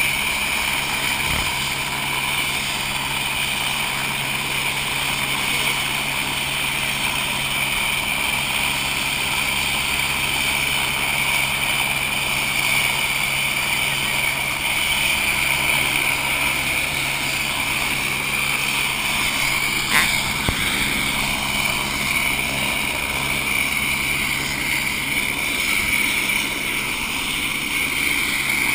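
Helicopter idling on its pad with the rotor turning: a steady high whine over the engine and rotor noise. A single sharp click comes about two-thirds of the way through.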